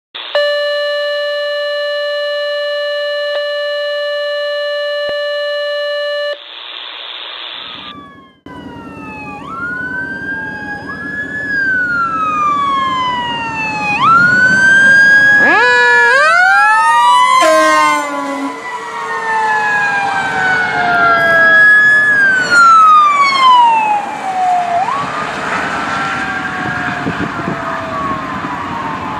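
A steady electronic tone for about six seconds, a short burst of hiss, then the sirens of a responding fire engine and ambulance: several wails rising and falling out of step with each other, a fast yelping stretch about halfway through, over the low rumble of the vehicles.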